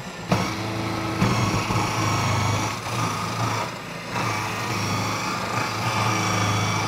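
Food processor motor switching on and running steadily as its coarse grating disc shreds whole zucchinis pushed down the feed tube. The hum dips briefly twice, around three and four seconds in.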